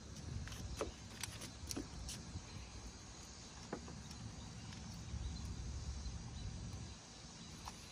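Quiet outdoor ambience: a low steady rumble with a faint, even high insect hum, and a few light, irregular clicks.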